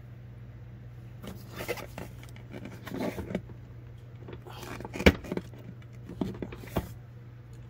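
Hands working at a plastic coolant reservoir and its hose clip, trying to free it from its mounting tabs: scattered plastic rustles, creaks and clicks, with one sharp click about five seconds in, over a steady low hum.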